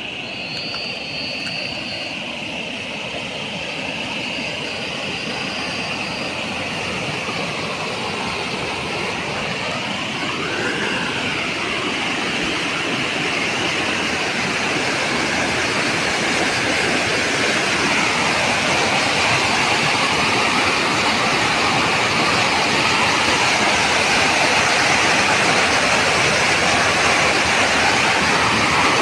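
Muddy floodwater rushing in a turbulent torrent, a steady rushing noise that grows gradually louder.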